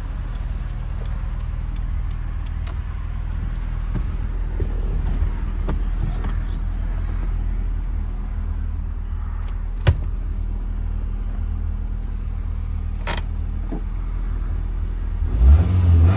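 1990 Toyota Sera's 1.5-litre four-cylinder engine idling steadily, with two sharp clicks along the way. Near the end it is revved up quickly.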